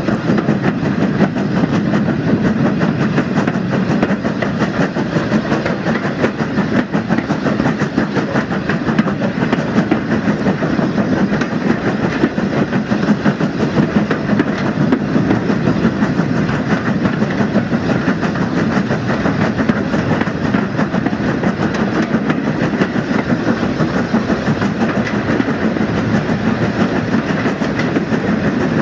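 Steam-hauled passenger train running along the line, heard from the coach just behind the locomotive's tender: a steady rumble and rattle of wheels on the rails.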